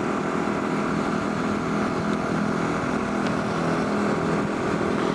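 Motorcycle engine running steadily while riding, with an even rush of noise over it.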